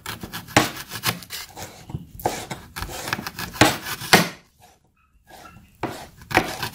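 Kitchen knife slicing through a raw white onion on a ceramic plate, each cut ending in a knock of the blade against the plate. The cuts come in a quick, uneven series, pause for about a second and a half, then resume with a couple more cuts near the end.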